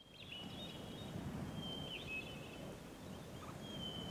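Faint outdoor ambience with birds calling: a few short, thin whistled chirps over a steady low background hum.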